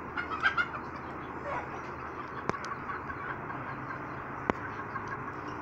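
Faint scattered bird calls and chicken clucking over a steady outdoor background, with two sharp clicks about two and a half and four and a half seconds in.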